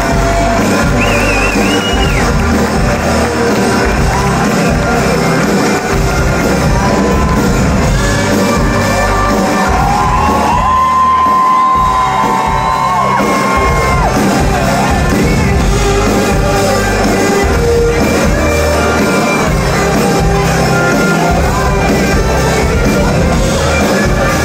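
A live pop-rock band plays loudly in a large hall: drums, bass, electric guitar and piano, with long held notes in the middle. Whoops and shouts from the crowd come in over the music.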